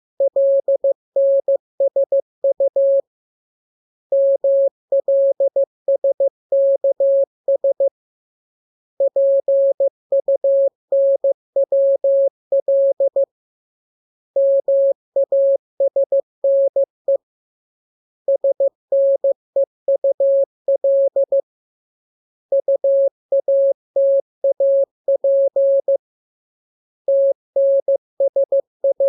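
Morse code (CW) practice tone at a single steady pitch, keyed in dots and dashes. The characters come in groups of a few seconds each, with pauses of about a second between groups.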